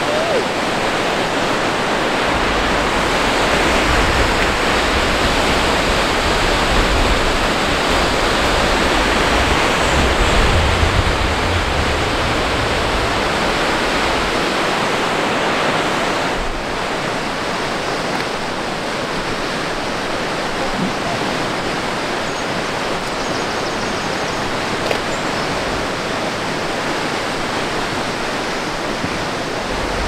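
Steady rushing wind noise on the microphone, with a gusty low rumble that buffets it through the first half and eases a little about halfway through.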